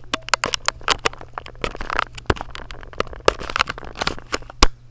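Close handling noise: rustling and many irregular sharp clicks as a hand-held camera is moved right up against a soccer shoe, with the loudest knock near the end.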